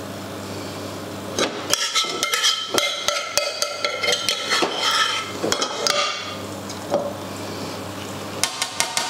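Metal spoon scraping and clinking against a frying pan and roasting tin as tomato sauce is scooped out and spread, with ringing metallic clinks. The clatter starts about a second and a half in, pauses, and comes back near the end, over a steady low hum.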